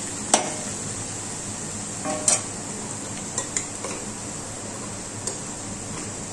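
Sliced onions sizzling steadily in oil and butter in a steel wok as a spatula stirs them; the spatula clinks against the pan a few times.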